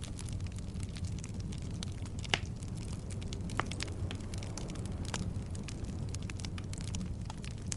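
Wood logs burning in a fireplace: a steady low rumble of the flames with frequent crackles and snaps, and two louder pops a little after two seconds and at about three and a half seconds.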